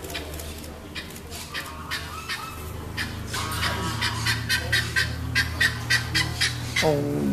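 A bird calling over and over in quick pitched honks, about four or five a second, growing louder toward the end.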